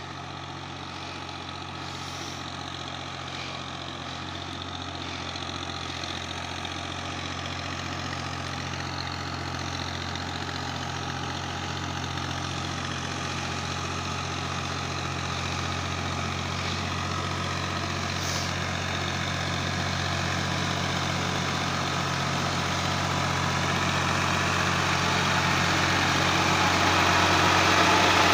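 Fiat 480 tractor's three-cylinder diesel engine running steadily under load, pulling a loaded trolley, and growing steadily louder as it comes closer.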